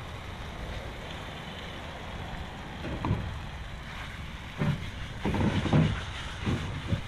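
Coral trout fillets frying in butter in a pan on a portable gas stove, a steady sizzle under wind on the microphone. A few knocks and scrapes of the pan and a knife against the stove about three seconds in and again near the end.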